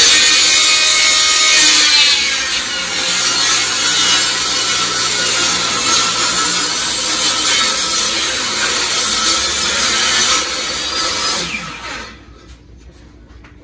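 Ryobi table saw running and ripping through a plywood board. It winds down and stops near the end.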